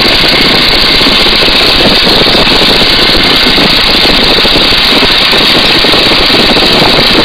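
Boeing-Stearman N2S-3 biplane's radial engine and propeller running steadily in cruising flight, mixed with heavy wind rush over the microphone mounted outside the open cockpit.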